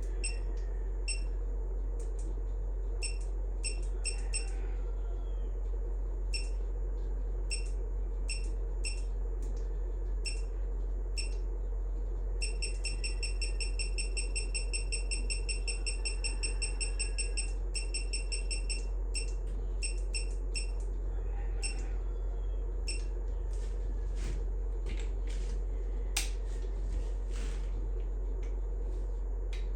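Socket ratchet clicking, in short runs of a few clicks and in one fast, continuous run of several seconds in the middle, over a steady low hum.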